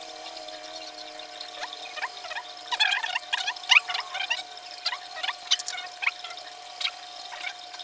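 Quick, light clicks and ticks of a small hex key and metal fork parts being handled during suspension-fork reassembly. They are busiest about three to four seconds in, over a steady faint hum.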